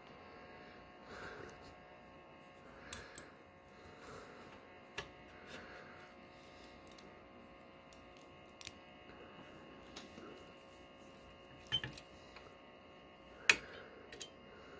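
Small sharp plastic clicks and taps as twist-lock bulb holders are worked loose from an instrument cluster circuit board with fingers and tweezers. The clicks are scattered, a few in quick pairs, and the loudest comes near the end, over a faint steady hum.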